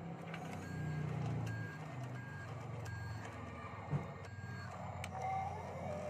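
Toy RC dump truck's reversing alarm beeping, a short high beep about every three-quarters of a second, over a low motor hum as it backs up. A single knock comes about four seconds in, and near the end the beeps stop and a steady whine starts as the dump bed begins to tip.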